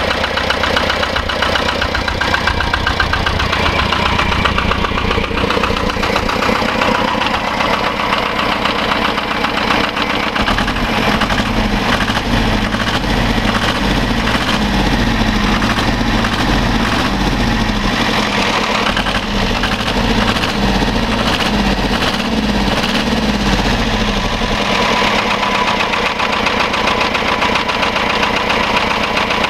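Engine of a reconditioned PGS small tractor idling, with a steady, even running note that changes in its low end for a stretch in the middle.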